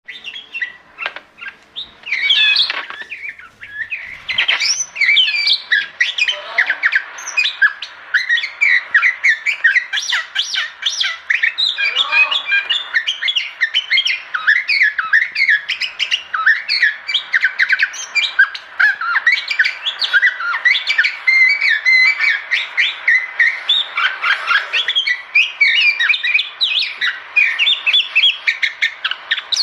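Birds chirping and calling without a break, a busy stream of short, high notes.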